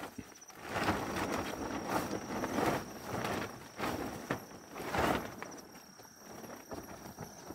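Plastic tarpaulin rustling and crackling in irregular bursts as it is pulled and spread over a dome tent.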